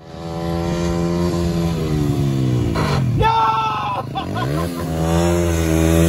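Yamaha WR125X single-cylinder four-stroke engine revving as the motorcycle is ridden, its pitch falling and rising again twice.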